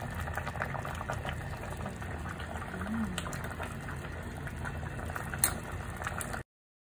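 Pot of sinigang (salmon in sour broth) bubbling at a steady simmer, with fine crackling. There is a single sharp click about five and a half seconds in, and the sound cuts off suddenly near the end.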